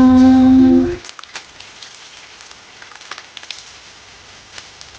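Oil and food sizzling in a frying pan, a steady hiss with faint scattered crackles. A held vocal note ends abruptly about a second in, and the sizzling carries on quieter after it.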